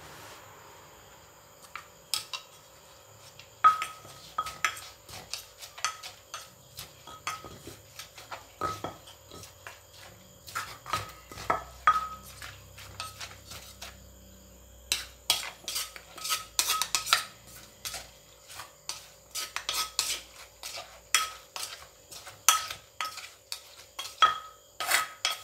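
Wooden pestle pounding shredded green mango in a clay mortar for som tam, each stroke a sharp knock with a short ring. The knocks start about two seconds in at one or two a second, then come faster and louder in the second half.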